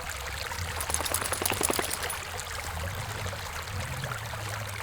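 A small stream running steadily over rocks, with a short burst of sharp clicks and knocks about a second in.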